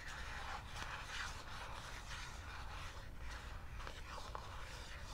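Long fingernails scratching over a cardboard AirPods Pro box close to the microphone, in short uneven strokes with an occasional light tap.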